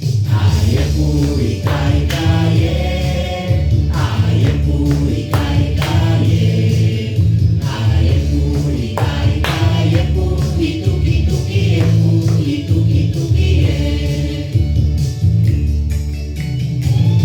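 A recorded song for a children's body-percussion chant: group singing over a steady bass line with light percussion.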